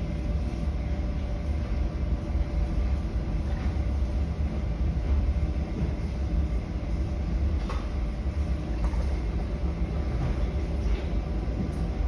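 A steady low rumble with a faint hum over it, and one faint click about eight seconds in.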